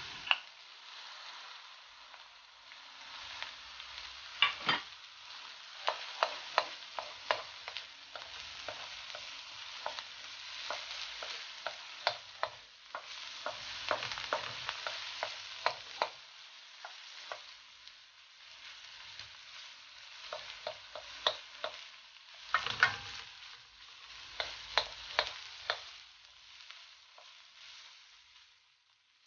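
Chopped onion and chili sautéing in oil in a metal wok: a continuous sizzle, with the clacks and scrapes of a wooden spoon stirring against the wok coming in spells.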